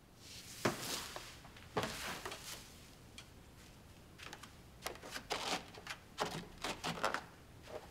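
Cloth rustling and a scatter of light knocks and taps on wood as a man in a silk robe gets up and moves across a wooden floor; the rustling comes first, the knocks bunch together in the second half.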